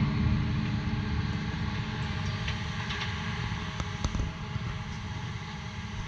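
Low, steady vehicle rumble mixed with wind noise, fading gradually, with a few faint clicks around the middle.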